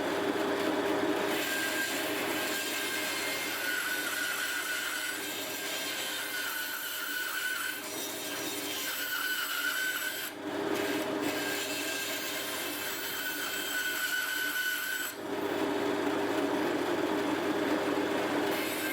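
A stationary woodworking power tool running steadily while it works pine, its hum and the sound of the cut changing several times as the wood is fed in and eased off, with a short dip about ten seconds in.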